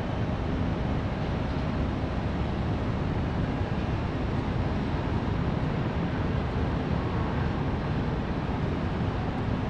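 Distant city traffic: a steady low rumble of many vehicles blended together, with no single car standing out.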